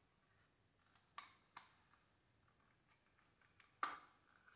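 Faint clicks and taps of small parts being handled by hand, over near silence: two light ones about a second and a half in, and a sharper one near the end.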